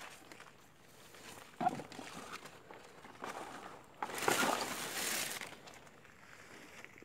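Footsteps on a stony, leaf-littered forest floor and leaves rustling as undergrowth is brushed past, with a sharp rustle about a second and a half in and a louder, longer rustle about four seconds in.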